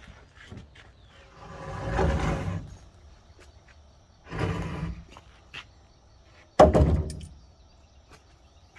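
Power drill driving screws into a 2x4 porch framing member, running in three short bursts; the last starts sharply and is the loudest.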